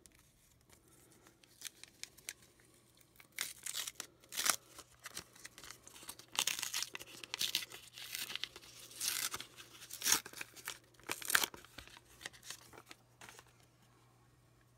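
Pokémon trading card booster pack wrapper being torn open and crinkled by hand, in a series of short rips and crackles from about three seconds in to about twelve.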